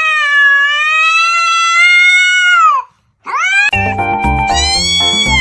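A cat giving a long, drawn-out meow of about three seconds that drops in pitch at the end, then a short rising meow. About two-thirds of the way in, background music with a steady beat starts, and another long meow sounds over it.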